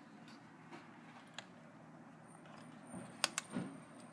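Small clicks of a laptop being taken apart by hand, as the wireless card's cable is unplugged. Two sharp clicks and a soft knock come about three seconds in, over a low steady hum.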